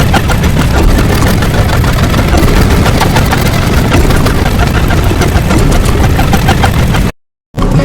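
Loud, dense, continuous rumbling noise, heaviest in the low end, that drops out to silence for about half a second near the end.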